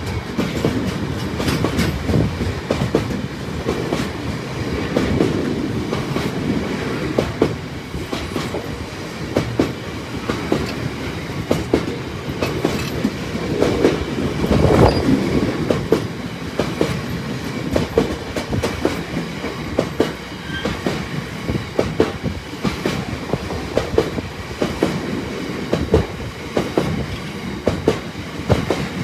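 Freight train wagons rolling past, their wheels giving a steady run of clickety-clack beats over the rail joints above a continuous rumble, loudest about halfway through.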